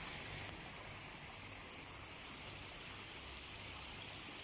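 Steady rush of water flowing along a small artificial stream and into a stone-edged garden pond.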